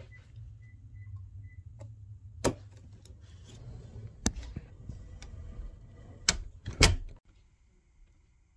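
Handling noise from a hand-held microphone: a low rumble with four sharp knocks, the last two close together. It cuts off suddenly about seven seconds in and gives way to near quiet.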